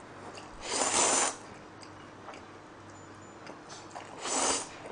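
A person slurping noodles off chopsticks, twice: one loud slurp about a second in and another near the end. Faint ticks and clicks come between them.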